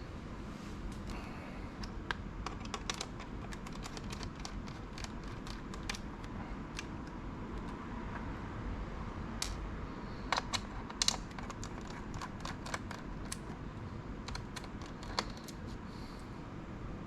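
Irregular small clicks and taps of hand tools and fingers on a laptop's plastic case and internal parts during disassembly, with a few louder clicks about ten seconds in.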